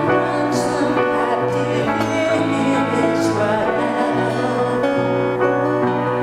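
Live church worship music, with instruments playing steady, held chords.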